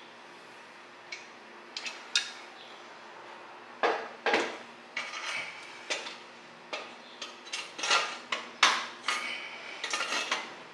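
Metal parts and hand tools being handled while turbo manifold hardware is fitted: a string of sharp metallic clinks and knocks, sparse at first and coming thick and fast in the second half, over a faint steady hum.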